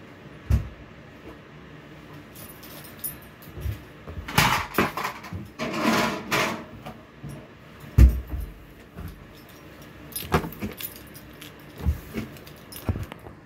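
Handling noises from cleaning a hotel room: scattered knocks and thumps, the sharpest near the start and about eight seconds in, with a stretch of rustling in the middle. Near the end a cloth wipes across the desktop.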